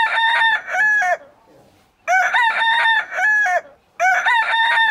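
A rooster crowing: the same crow heard three times, about two seconds apart, each call a short rising note followed by a long held note.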